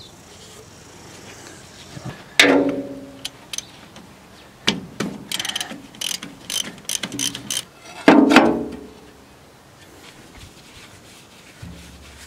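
Socket ratchet clicking in short bursts as a bolt is worked loose on the International B250 tractor's hydraulic filter housing, with two loud, ringing metal clanks, one about two seconds in and one about eight seconds in.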